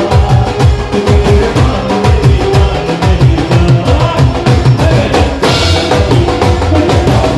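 Live band music driven by a dhol and a drum kit playing a fast, dense beat, with a cymbal crash about five and a half seconds in.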